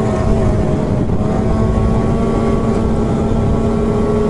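Two-stroke snowmobile engine running at a steady speed while riding, its pitch holding even, over low rushing ride noise.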